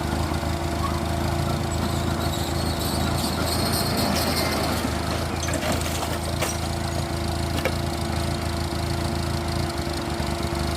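Off-road 4x4 engine running steadily at a low, even speed, with a couple of faint knocks about six and a half and seven and a half seconds in.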